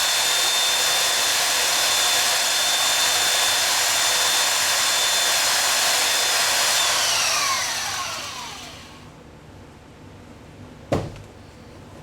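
Electric belt sander running at full speed with a steady high whine, then switched off about seven seconds in, its whine falling as it spins down. A single sharp knock near the end.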